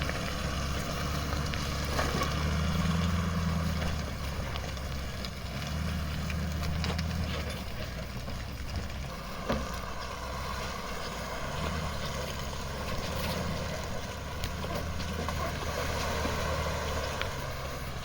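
Vehicle engine running while driving, its low hum swelling and easing with the throttle, with road noise and a few knocks and rattles.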